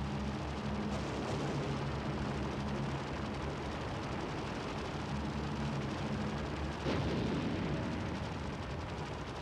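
Wartime battle sound: a steady low drone, with a sudden heavy blast of gunfire or an explosion about seven seconds in.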